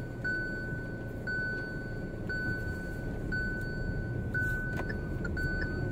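A car's dashboard warning chime sounds a single high tone, restruck about once a second, over the low road and engine rumble inside the moving car's cabin.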